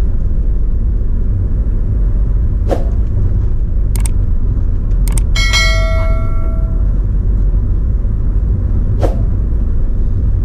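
Steady low rumble with a few sharp clicks, and about five seconds in a short bright metallic ring that fades over a second or so.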